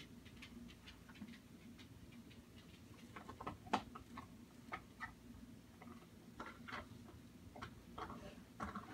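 Faint, irregular light clicks and ticks over a low steady hum, the clicks growing more frequent past the middle, with one sharper click about four seconds in.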